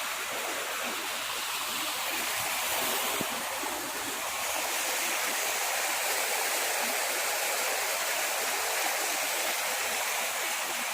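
Steady rushing of flowing river water, an even hiss that swells slightly a couple of times.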